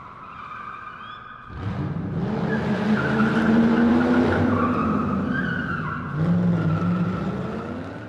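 Car sound effect: tires squealing, joined about a second and a half in by an engine revving hard. It swells twice and fades out near the end.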